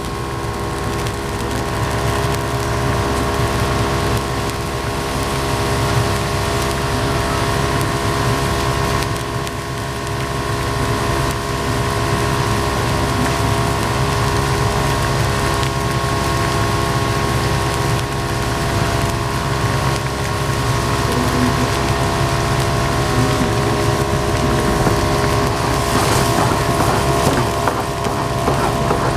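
A pan of broth with pork and tofu boiling hard on a gas stove, bubbling steadily, over the continuous hum and rush of the kitchen's burner and ventilation.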